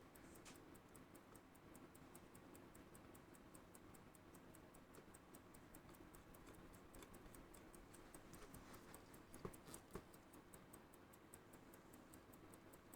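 Faint, steady ticking of a freshly serviced antique Tissot Cal. 43 pocket watch movement running again, about five ticks a second. Two light clicks come a little after nine seconds in.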